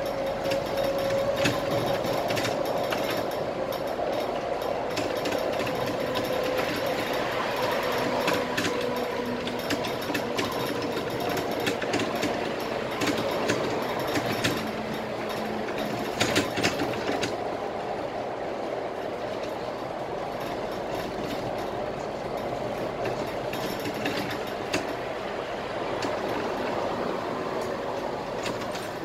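Cabin noise of a Scania K320IA bus underway, heard from the driver's seat: a steady engine and road drone with a whine that slowly drops in pitch over the first several seconds, and frequent clicks and rattles from the cabin fittings. The noise eases slightly about halfway through.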